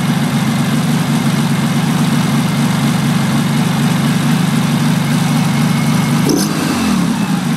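Freshly built air-cooled VW flat-four stroker engine (78 mm crank, 92 mm pistons) with a single Zenith 32NDIX carburettor, running steadily at a raised idle during break-in. About six seconds in, a click and a quick dip in pitch as the carburettor linkage is worked, then the steady idle goes on.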